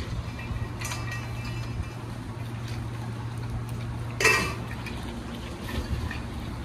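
Stainless steel dog bowls clinking and clanking against the ground as dogs eat from them, with a light ring about a second in and one louder clank just after four seconds, over a steady low hum.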